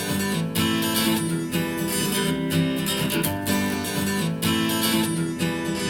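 Strummed acoustic guitar in the intro of a pop song, with no vocals yet, played back through compact powered desktop speakers for a sound demo.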